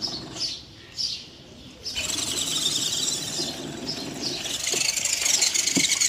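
Water splashing and churning around a scale RC Land Rover D90 crawler held in a tub of water: two short bursts, then continuous from about two seconds in.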